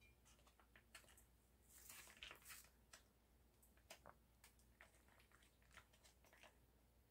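Near silence with faint crinkling and small clicks of a plastic packet of chili paste being squeezed and pressed, the crinkling strongest about two seconds in.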